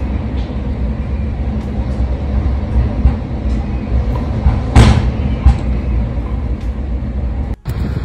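Strong gusty wind rumbling across the microphone in a snowstorm, with a brief louder swell about five seconds in. The sound drops out for a moment near the end.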